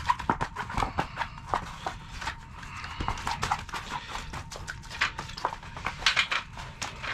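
A freshly landed walleye flopping on wet ice, a rapid, irregular run of slaps and knocks.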